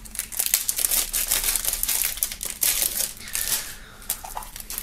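Plastic shrink-wrap film crinkling as it is peeled off a CD jewel case, a quick run of crackles that thins out to a few light clicks near the end.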